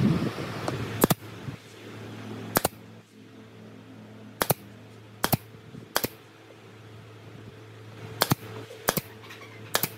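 Pneumatic nail gun firing brads into pine strips, eight sharp shots at uneven intervals over a steady low hum.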